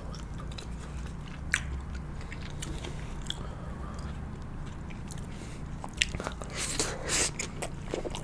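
Close-miked eating sounds of a person chewing sushi: soft wet mouth clicks, with a sharp click about a second and a half in and a busier stretch of chewing near the end, over a low steady hum.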